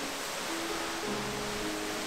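Background music of slow held notes over the steady rush of falling water from a waterfall.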